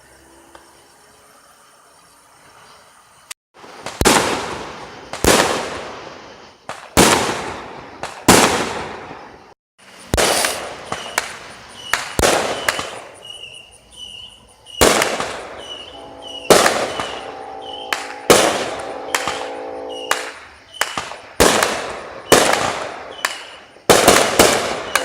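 Fireworks bursting overhead: after a few quiet seconds, a steady run of loud bangs about once every second or so, each dying away in a rolling echo.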